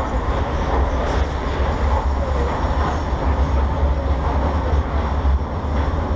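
Budapest Metro Yellow Line train heard from inside the car while it runs, a loud steady rumble with a heavy low drone. The ride is noisy and bumpy.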